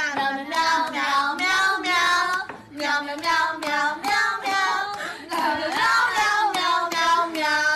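A high-pitched voice singing a melody in short, connected notes.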